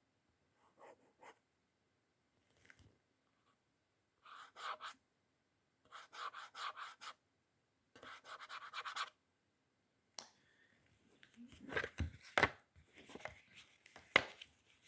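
Scraping on the plastic housing of a Brennenstuhl power strip in three short rasping bursts, testing how easily the plastic scratches. Near the end come sharp knocks and handling of the hard plastic.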